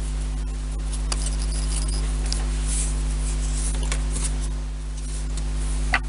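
Steady low electrical hum, with faint light clicks and rustles of thin wooden strips being handled and tapped together; a sharper click near the end.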